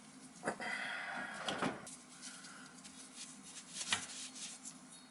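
Light clicks and knocks of metal fittings and tools being handled during copper pipe repair work. A short rough rustle about a second in and a sharper knock near the four-second mark stand out.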